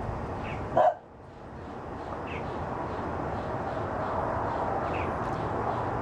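One short, loud bark-like animal call about a second in, over a steady background of noise, with a few faint high chirps every couple of seconds.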